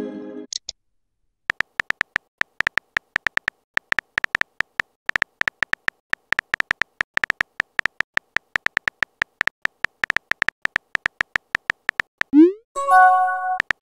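Texting-app keyboard sound effect: quick, irregular clicks, several a second, as a message is typed out. About twelve seconds in, a short rising whoosh marks the message being sent, followed by a brief electronic chime.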